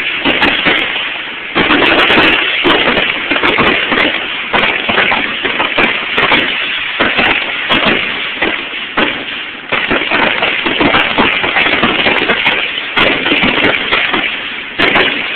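Fireworks finale barrage: aerial shells bursting in rapid succession, a dense continuous run of booms and crackle with no gaps, and fresh heavy volleys about 1.5, 4.5, 10, 13 and 15 seconds in.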